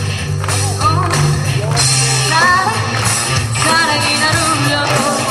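A woman singing into a microphone over backing music with a steady bass line, played through stage loudspeakers.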